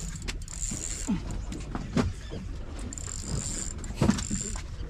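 A fishing reel being wound, its mechanism clicking and whirring, with a few short falling squeaks about one, two and four seconds in, over a steady low rumble.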